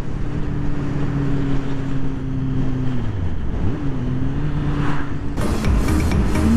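Motorcycle engine running at a steady cruise with wind noise. Its pitch dips and climbs again about three to four seconds in. Background electronic music with a steady beat comes in near the end.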